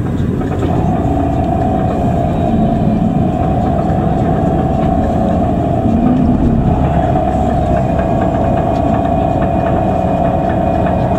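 Bus engine running, heard from inside the cabin, with a steady whine that comes in about a second in and holds.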